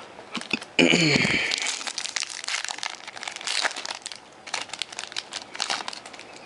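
Foil wrapper of a trading-card pack crinkling as it is handled, a dense run of irregular crackles. About a second in there is a brief, loud falling sound like a voice.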